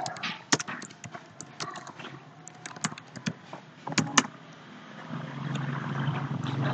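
Computer keyboard typing in irregular clicks that stop after about four seconds. A low steady hum then builds up and grows louder toward the end.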